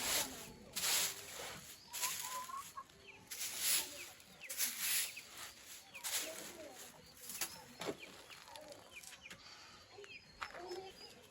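Chickens clucking over repeated sweeping strokes from cleaning out the chicken house. The strokes come at roughly one a second.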